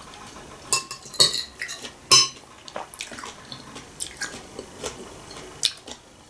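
Metal spoon clinking and scraping against a glass bowl: a string of short, sharp clinks, the loudest about two seconds in.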